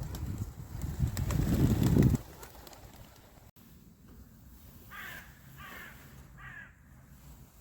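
A loud low rumble for about the first two seconds, then a bird calling three short times, each call under half a second and spaced less than a second apart.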